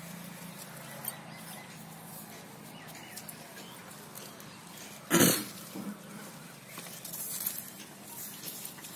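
Leaves of a gandharaj lemon tree rustling as a hand reaches in among the branches and grips a lemon to pick it. Over a faint low hum, one loud short sound about five seconds in.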